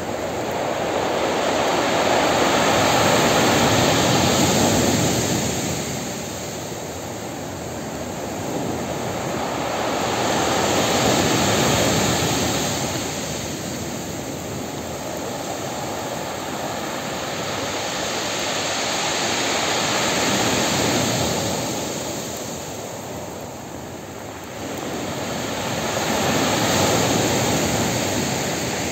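Storm surf breaking on a pebble beach: a steady wash of noise that swells and fades with each wave, cresting four times about eight seconds apart.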